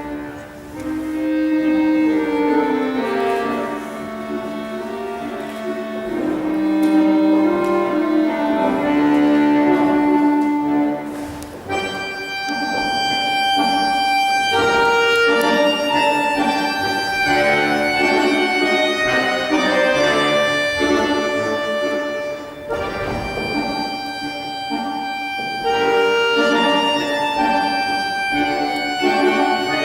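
Instrumental accompaniment music for dance barre exercises: a melody of held notes, with a brief break about a third of the way in before a new phrase.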